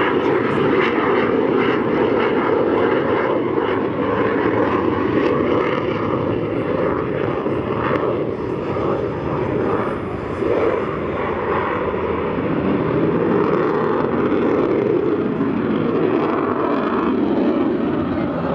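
Eurofighter Typhoon's twin EJ200 turbofan engines, a loud, steady jet rumble as the fighter pulls up into a vertical climb.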